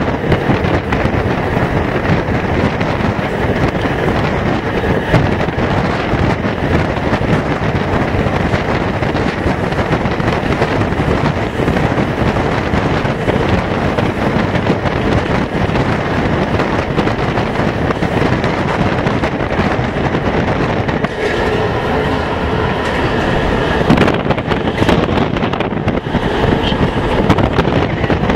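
Amtrak Pacific Surfliner passenger train running at speed: steady wheel-on-rail rumble with wind buffeting the microphone held out of the window. A few steady tones sound briefly over it near the end.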